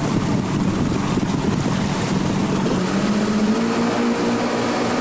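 Ski boat's outboard motor running steadily. Its pitch rises a little about three seconds in and then holds.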